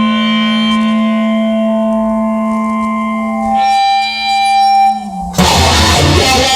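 Instrumental passage of a song: held electric guitar chords with effects ring on and change about three and a half seconds in, break off briefly, then strummed guitar comes in louder just after five seconds.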